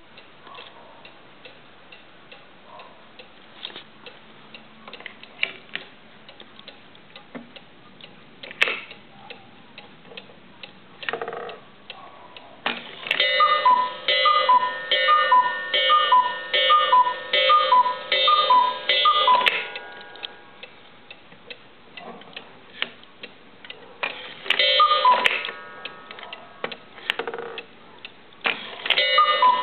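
Carved wooden cuckoo clock: pendulum ticking, then a run of about eight cuckoo calls, each a higher note falling to a lower one. A short burst of calls comes about 25 seconds in, and another run starts near the end.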